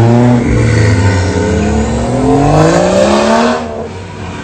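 Car engine accelerating hard. The revs drop at a gear change about half a second in, then climb steadily for about three seconds before the sound fades as the car pulls away.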